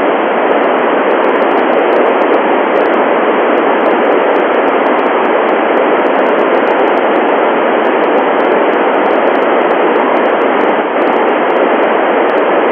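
Steady, loud FM radio static: an even hiss from the Icom IC-9700 with its squelch open and no station heard on the satellite downlink.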